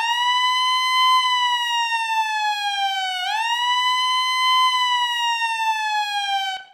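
Ambulance siren wailing: one tone that climbs quickly, then slowly sinks, twice over, each cycle about three seconds, and cuts off just before the end.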